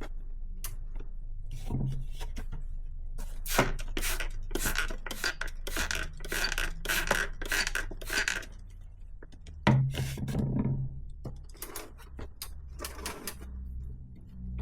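Rinsing a bicycle cassette: a run of short spraying and scraping strokes, thickest in the middle, as the diluted dish-soap water washes off the degreaser and the cassette is turned.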